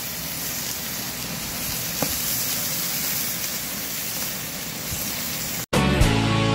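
Steak sizzling, a steady hiss that cuts off suddenly about five and a half seconds in, where music starts.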